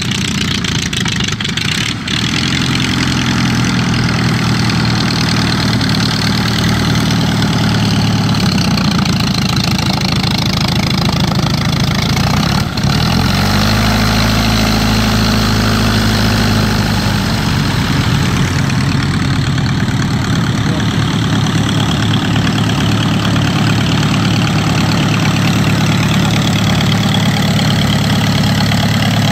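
Klemm 35 light aircraft's small piston engine running at a steady taxi idle, the propeller turning. About halfway through, a deeper low rumble swells for a few seconds as an aircraft passes close.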